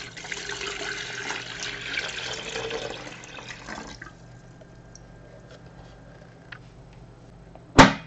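Water poured from a plastic measuring jug into an empty plastic electric kettle, splashing for about four seconds and then stopping. Near the end, one sharp click as the kettle's lid is pressed shut.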